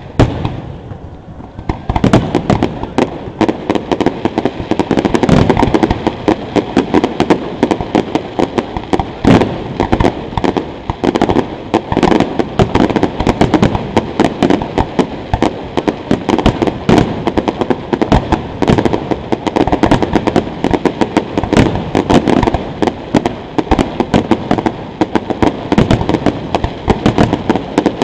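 Fireworks display heard at close range: after a brief lull, from about two seconds in, shells burst in a loud, continuous barrage of many bangs a second.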